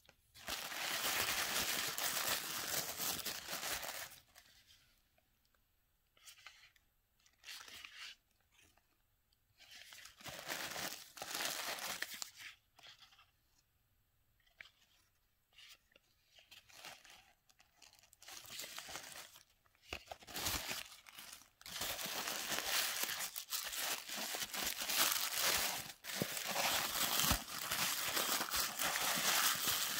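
Tissue paper rustling and crinkling as hands dig through it. It comes in bursts: a long stretch in the first few seconds, short scattered bits through the middle, then steady crinkling for the last third.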